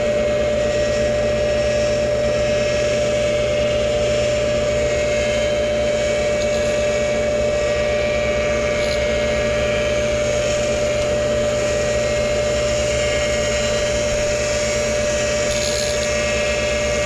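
Tool and cutter grinder running steadily, a constant whine over a low hum, as its dish wheel touches up the teeth of a horizontal-mill cutter on its arbor. A few faint ticks come through the steady sound.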